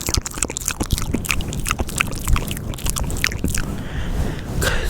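Wet ASMR mouth sounds: a quick run of many clicks and smacks of the lips and tongue, over a steady low rumble.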